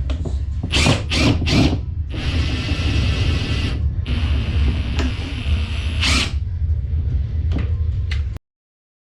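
Cordless power driver running in two bursts of about two seconds each, with a thin high whine, preceded by a few short strokes, while working a bolt on a motorcycle fork leg. A steady low hum runs underneath, and the sound cuts out abruptly near the end.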